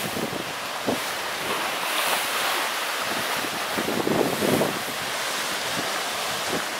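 Gusty storm wind rushing and buffeting the microphone over the wash of the surf, with heavier gusts around four seconds in.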